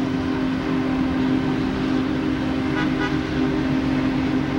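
Union Pacific 4014 Big Boy's steam whistle blowing one long chord over the rumble of the departing locomotive.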